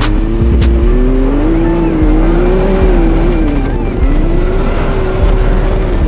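Can-Am Maverick X3 Turbo RR side-by-side, its turbocharged three-cylinder engine pulling at low speed on a dirt trail. The engine note rises, dips once about halfway through, then climbs and holds. A heavy low rumble of wind and terrain runs under it on the outside-mounted microphone.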